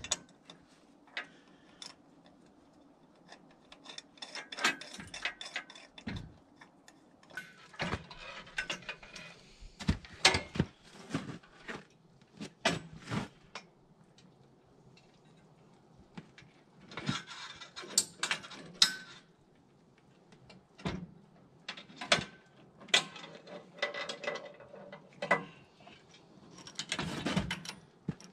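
Ratchet wrench clicking in short runs with pauses between, along with clinks and knocks of steel parts, as bolts on a sawmill frame are tightened.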